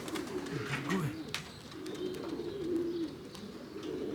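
Domestic pigeons cooing, several low warbling coos overlapping, with a few short clicks about a second in.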